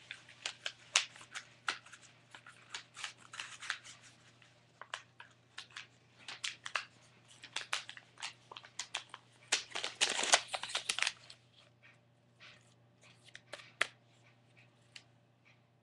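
A sheet of paper being rolled into a tube by hand: irregular crinkling and rustling, with a longer, denser burst of crackling about ten seconds in.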